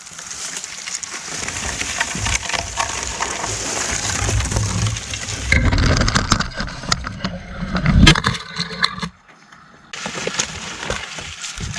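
Footsteps and rustling through dry leaves and brush while gathering sticks, with crunching and cracking of twigs, loudest in the middle.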